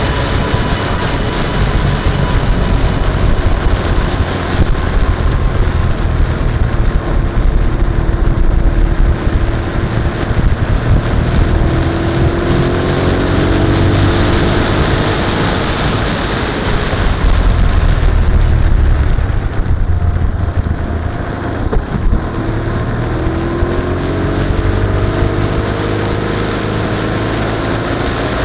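Motorcycle riding at road speed: a steady, heavy rush of wind on the microphone over the engine. The engine's pitch rises and falls around the middle and again near the end.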